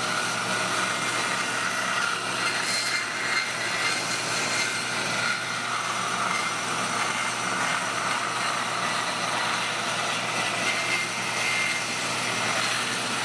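Band saw running steadily, its blade cutting through a slab of cast clear epoxy resin with bubble wrap embedded in it: a constant motor hum under the hiss of the blade in the resin.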